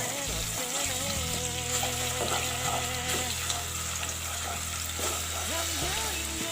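Ground garlic and shallot paste sizzling as it sautés in hot oil in a pan, with background music playing under it.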